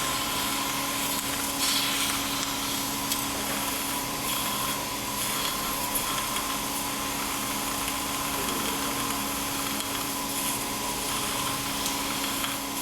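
A machine running steadily: an even hiss with a constant hum, and a brief louder rustle about two seconds in.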